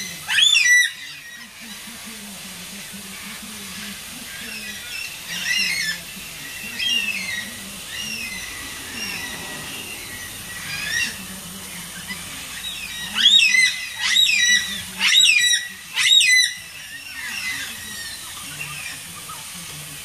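Carnaby's black-cockatoos calling: scattered short wailing calls, with a loud run of four calls about thirteen to sixteen seconds in.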